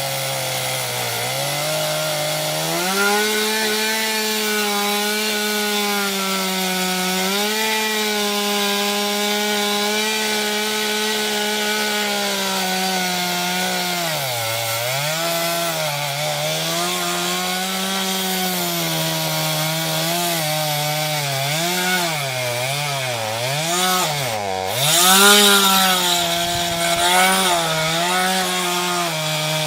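Small corded electric chainsaw with a 15-inch bar cutting into an ash trunk. The motor runs steadily at first, then its pitch sags and recovers again and again as it bogs under load in the cut, most often in the second half.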